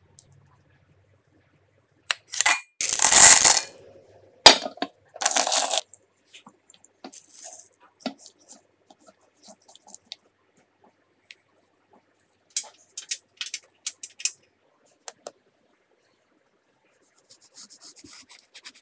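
Close-miked kitchen handling sounds: a couple of loud noisy bursts and a sharp metallic clink early on, then scattered small clicks and taps of utensils on a bowl, and near the end a knife crackling down through a crisp chocolate and chopped-nut coating on a wooden board.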